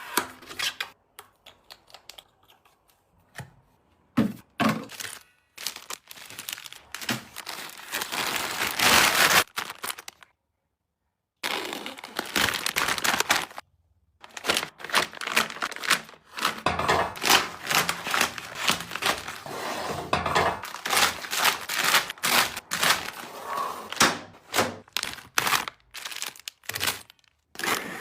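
Close, busy crinkling and rustling of packaging being handled, mixed with light taps and clicks. The sound breaks off to total silence for about a second around the middle.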